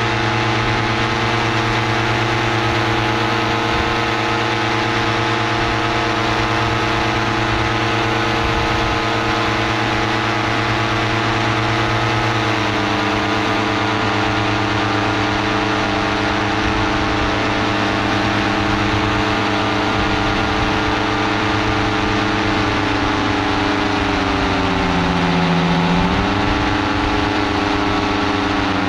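Paramotor engine and propeller running steadily in flight. The engine note shifts slightly about a third of the way in, then sinks over several seconds near the end before picking up again.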